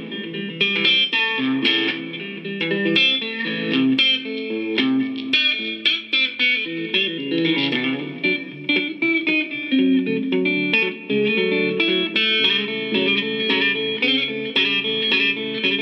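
Electric cigar box guitar played with a slide: a quick bluesy run of plucked notes, some gliding up and down in pitch, through a pickup with a light overdrive.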